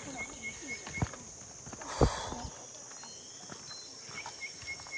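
Forest trail sounds: a steady high insect drone, with runs of short repeated chirps at the start and again near the end. Hikers' footsteps knock on the trail, with one louder thud about two seconds in.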